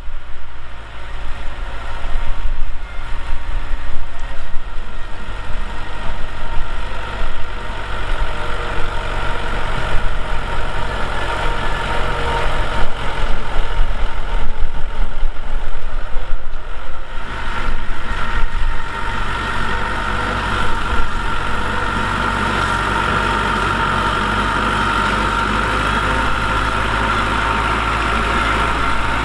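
Heavy diesel earthmoving machine's engine running, surging loudly and unevenly under load for about the first twenty seconds, then settling to a steady even run with a high whine over it.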